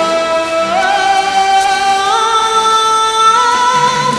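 A girl singing into a handheld microphone, holding long notes with vibrato that step upward in pitch, the highest note held near the end.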